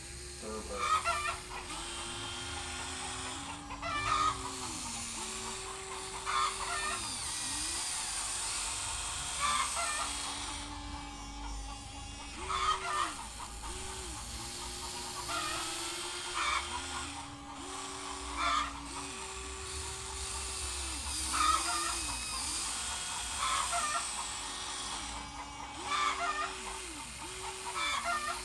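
Huina 1594 RC excavator's electric motors whining, the pitch stepping up and down as the machine is worked, with short, sharper higher sounds every two to three seconds.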